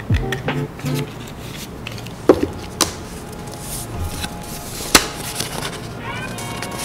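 Cardboard and paper items being handled: sharp taps and clicks of stiff card, three standing out, about two, three and five seconds in, with background music at the start.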